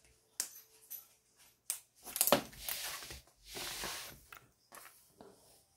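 Clear plastic film over a diamond painting canvas crinkling and rustling as the canvas is handled and shifted: a few short crackles, then two longer rustles in the middle, and a few faint ticks near the end.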